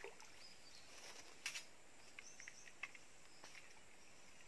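Faint ambience of insects chirping, with a few short high chirps about halfway through and a couple of soft clicks.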